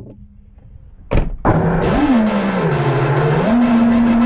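The brushless motors and propellers of a 6-inch FPV racing quad (HeliNation Apex 1 motors), heard from its onboard camera: a faint idle hum, a single knock about a second in, then a loud buzzing whine from take-off whose pitch drops and climbs again as the throttle changes.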